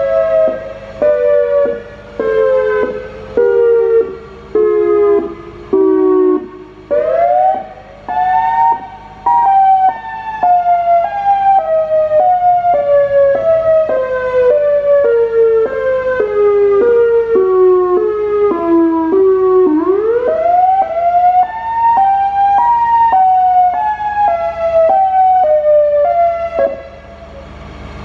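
SiraTone EOWS 115 electronic warning siren running through its test tones. First comes a pulsed tone that steps down in pitch, about one pulse a second. Then a continuous tone rises sharply and steps back down twice, and the sound falls away near the end.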